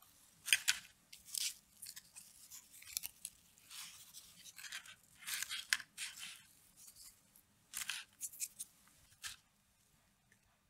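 Crisp wafer ice-cream cones being sawn through with a serrated knife: a series of short, irregularly spaced dry rasping crunches.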